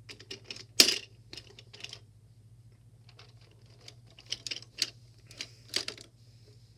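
Irregular sharp clicks and taps of hard plastic toys being handled, loudest about a second in and bunching up again near the end, over a faint steady low hum.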